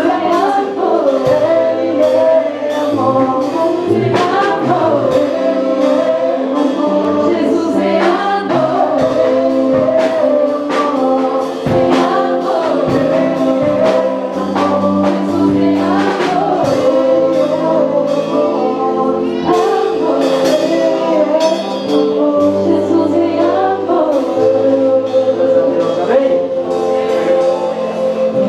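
Gospel song with several voices singing over sustained keyboard-like chords, a bass line and steady percussion.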